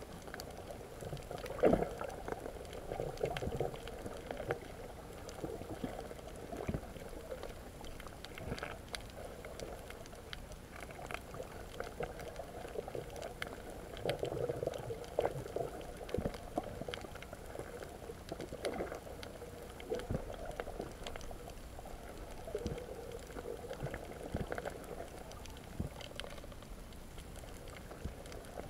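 Muffled underwater sound picked up by a camera below the surface over a coral reef: a steady bubbling, sloshing wash, with many scattered short clicks and crackles and one sharper knock about two seconds in.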